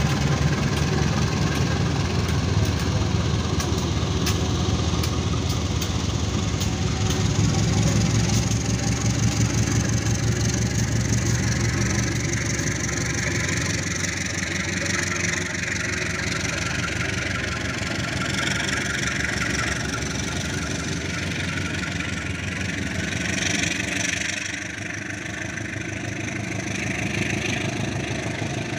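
Diesel locomotive engine running with a steady low drone that is strongest for the first dozen seconds and then eases off, over the steady noise of the train.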